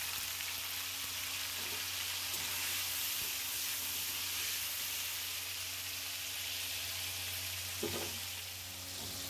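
Paneer cubes sizzling steadily as they fry in hot oil in a karahi, with one brief knock near the end.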